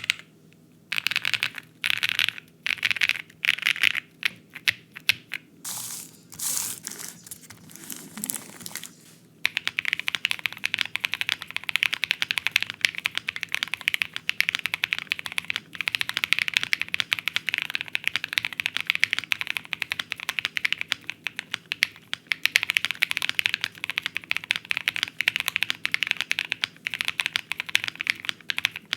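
Typing on a custom High65 mechanical keyboard with lubed and filmed Cow UHMWPE switches on a polycarbonate gasket-mounted plate with PE foam, a poppy sound test. Short bursts of keystrokes for the first several seconds, then steady fast typing from about nine seconds in.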